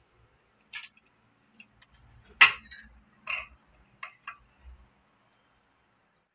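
Small gold-coloured ornamental cradle for a Krishna idol being rocked gently by hand, its fittings giving off about half a dozen short, light clinks, the loudest about two and a half seconds in.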